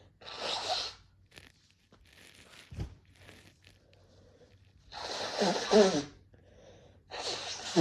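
A person sneezing: three short noisy bursts with some voice in them, the loudest about five to six seconds in and another near the end.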